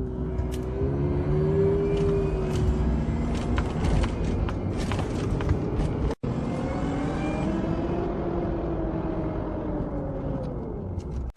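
Off-road vehicle engine running under load, its pitch rising and falling twice as the throttle changes, over a steady rumble with scattered knocks and clicks. The sound cuts out briefly about six seconds in.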